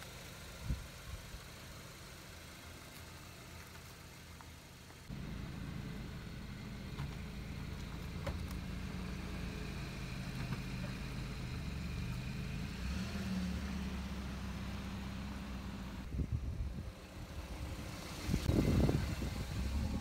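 Kia Sportage SUV engine idling steadily, the low drone coming in abruptly about five seconds in. Near the end a short, louder surge of engine sound.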